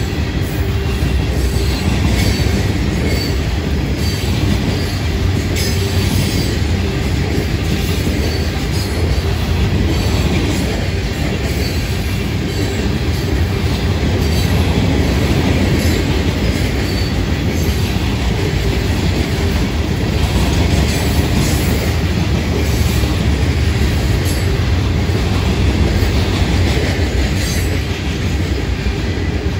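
Hopper cars of a Florida East Coast Railway rock train rolling past: a steady rumble of steel wheels on rail, with occasional clicks of wheels over rail joints and faint intermittent wheel squeal.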